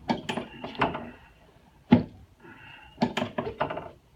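Sharp knocks and clicks from a chiropractic adjustment of the sacroiliac joint on a treatment table. A few come in the first second, the loudest single knock is about two seconds in, and a quick cluster follows near three seconds.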